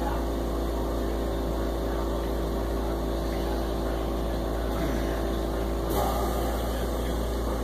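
Home oxygen concentrator running with a steady hum, a low drone under a few steady tones, with a brief louder noise about six seconds in.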